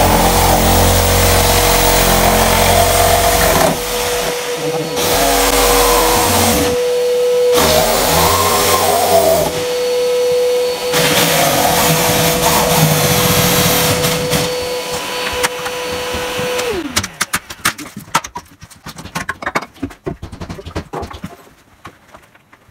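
Handheld power tool running at a steady high whine while cutting at the old window frame. It winds down about 17 seconds in, and short knocks and scrapes of prying at the frame follow.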